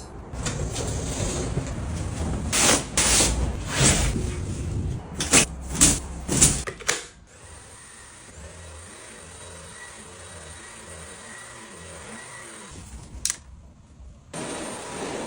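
Cleaning clatter: a series of sharp knocks and clunks over a low rumble, then a quieter stretch. Near the end a Dreame vacuum cleaner switches on and runs.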